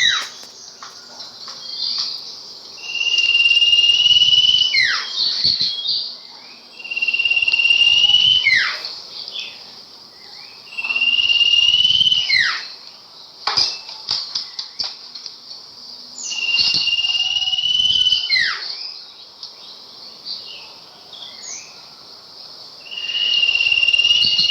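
Sirpu songbird singing the same phrase over and over, about every four seconds. Each phrase is a loud buzzy trill over a held high whistle, closed by a sharp falling note, with quieter chirps between the phrases.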